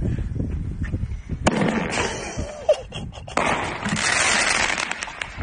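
Handheld aerial firework going off. A sharp bang about a second and a half in starts a hiss, then a crack comes a second later, and from about three and a half seconds a longer loud crackling burst follows.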